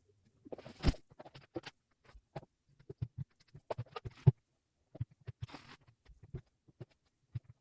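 Household cleaning sounds: scattered light knocks, taps and clicks of objects being handled and set down, with two short hissing bursts, one about a second in and one near five and a half seconds in.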